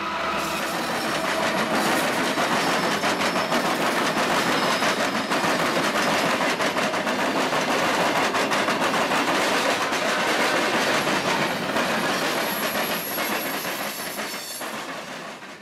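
Norfolk Southern freight train passing close by: the diesel locomotives come past, then the cars follow, their wheels clattering over the rails in a rapid clickety-clack. The sound builds over the first couple of seconds and holds steady. A faint, high wheel squeal comes in near the end as the sound begins to fade.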